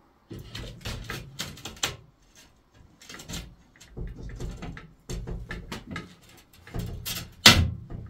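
Irregular knocks and rattles of a metal-framed glass window being handled, with one loud knock about seven and a half seconds in.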